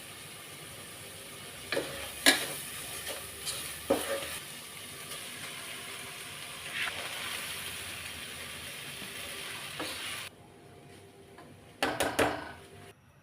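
Food sizzling in a frying pan while a cooking utensil stirs it, knocking sharply against the pan several times. The sizzle cuts off suddenly about ten seconds in, and a brief clatter follows near the end.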